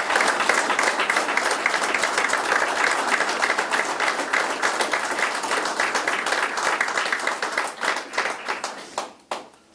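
An audience applauding: dense clapping from many hands that thins out and stops near the end.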